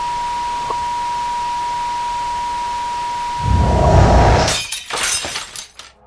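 Horror sound-design effects. A steady high-pitched tone sounds over hiss. A low rumble swells up about three and a half seconds in and gives way to a crash of breaking glass, with a few sharp shattering strikes that die away near the end.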